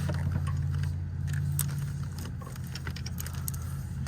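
Scattered metallic clicks and clinks of a spark plug socket and extension being worked down onto a spark plug, over a steady low hum.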